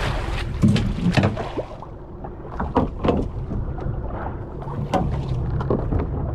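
A boat's engine running steadily with a low rumble, under a haze of wind and water, broken by several short sharp knocks and clicks.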